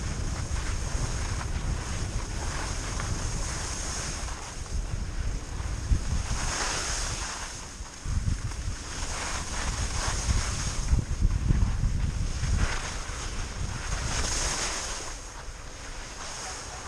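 Wind buffeting a GoPro's microphone during a ski run, with swells of hiss every few seconds as the skis carve and scrape across the groomed snow in turns. Both die down near the end as the skier slows to a stop.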